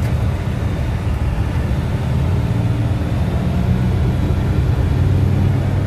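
Tow truck driving at highway speed: steady low engine and road noise.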